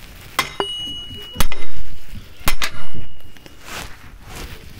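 Heavy metal clanks: three sharp strikes about a second apart, each leaving a brief metallic ring.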